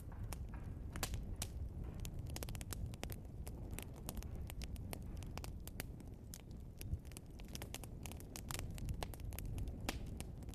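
Wood fire burning with a steady low rumble and frequent irregular sharp crackles and pops from the burning logs.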